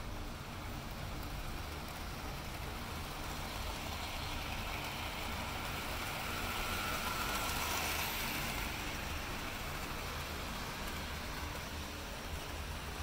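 Model trains running on a layout: a steady rumble and whir of locomotive motors and wheels on track, louder for a couple of seconds midway as a locomotive passes close by.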